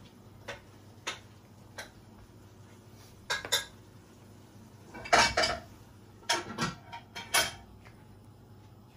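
Light clinks and knocks of dishware and utensils while cucumber slices are laid onto a filled baguette. There are a few single ticks at first, then short clusters of clinks, the loudest with a brief ring about five seconds in.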